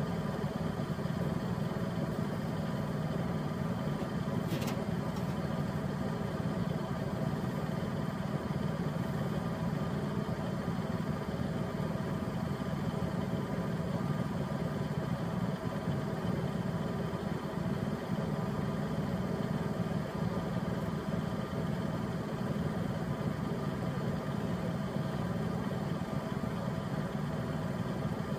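Compact farm tractor's engine idling steadily.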